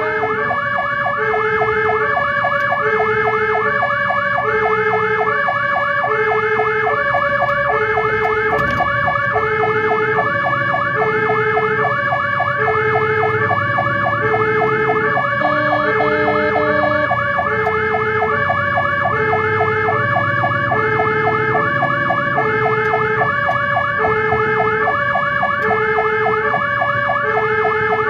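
Fire engine sirens running continuously: a two-tone hi-lo siren switching pitch about once a second over a faster, rapidly repeating yelp, with the truck's engine underneath.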